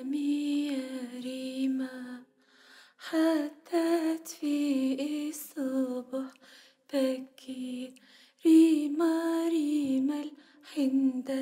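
A woman singing an Arabic lullaby unaccompanied, in short, slow phrases with brief pauses between them.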